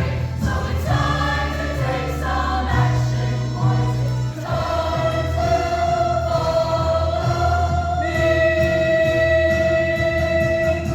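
High school choir singing with instrumental accompaniment and a steady bass line. In the second half they hold a long, sustained chord.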